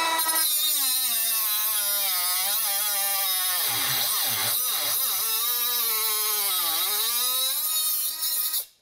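Milwaukee M12 Fuel 3-inch brushless cut-off tool running at high speed, its cut-off disc cutting through a 3/8-inch metal bar held in a vise. The whine dips in pitch several times as the disc bites under load, then the tool shuts off abruptly near the end.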